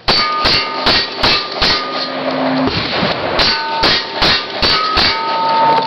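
Cowboy action shooting: about ten rapid gunshots in two strings of five, separated by a pause of under two seconds. Several shots are followed by the brief ring of steel targets being hit.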